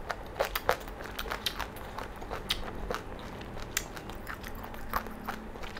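Close-miked chewing of crunchy food: a string of short, sharp, irregular crunches.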